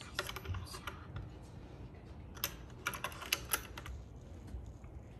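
Light, irregular clicks and clacks of a wooden peg being slid and knocked along the grooves of a wooden maze play panel, coming in two bursts, the second a little over two seconds in.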